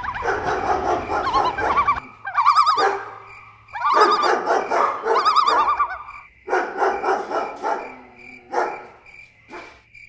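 An animal calling: a series of high, wavering cries in several bursts, the loudest about two and a half seconds in and again from about four to five and a half seconds.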